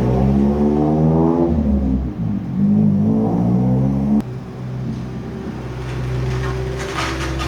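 Toyota Corolla KE70's 4A-GE 16-valve four-cylinder engine revving up and falling back twice, then running more steadily and quieter after an abrupt cut about four seconds in.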